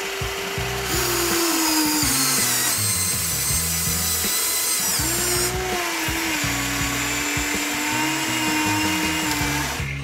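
Small electric motor of a toy vehicle whining, its pitch dropping as it slows, cutting out, then starting again about halfway and running steadily. Background music with a steady bass beat plays underneath.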